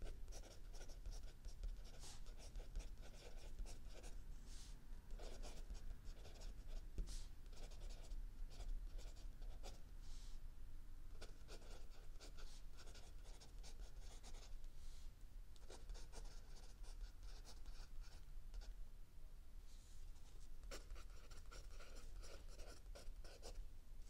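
Mechanical pencil writing on lined spiral-notebook paper: a run of quick scratchy strokes and small ticks of the lead, broken by a couple of short pauses.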